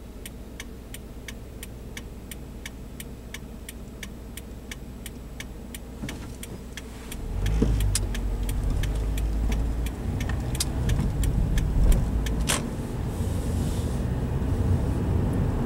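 Car's turn-signal indicator ticking evenly, about two ticks a second, over a low idle hum while stopped at a light. About seven seconds in the ticking fades and the car pulls away, its engine and road noise rising, with a single sharp knock near twelve seconds.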